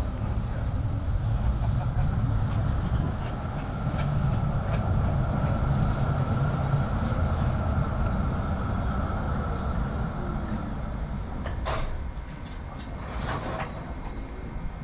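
Historic Rheinbahn tram running on street track: a steady low rumble with a held whine over it. It gets a little quieter after about twelve seconds, and two sharp clicks come near the end.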